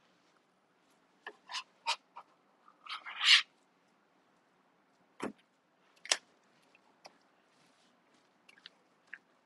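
A bench scraper clicking and scraping against a wooden cutting board as crumbly pie dough is gathered, then a short, loud burst of plastic wrap crinkling about three seconds in. After that come a low thud and a few scattered taps and rustles as the dough is set down on the wrap and pressed into a disc.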